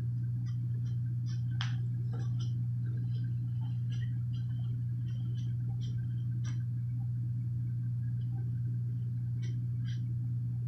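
A steady low machine hum that does not change, with faint light ticks and clicks scattered through it.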